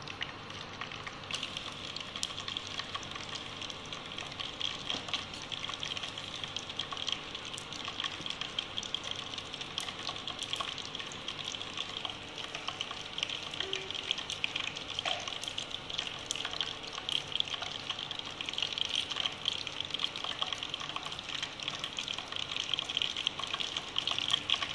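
A wire whisk beating thick flour-and-water malpua batter in a steel bowl: a steady wet mixing noise with many small clicks of the wires against the bowl.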